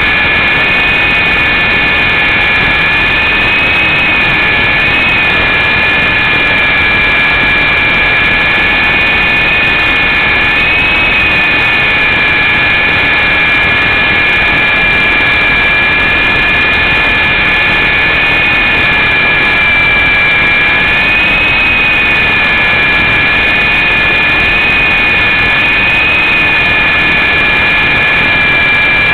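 Syma S033G RC helicopter's electric motors and rotor blades running steadily in flight, heard close up through its onboard camera: a loud, even whine with two high tones that drift slightly in pitch, over a rushing hiss.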